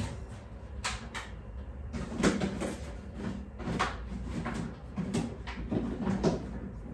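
Light knocks and clatters of food containers being put onto the shelves of a small under-counter fridge, with its door open. There are several separate knocks spread through.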